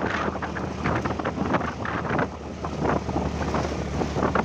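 Honda scooter riding over a rough, rocky dirt road: a steady engine hum under wind on the microphone, with irregular knocks and rattles from the bumps.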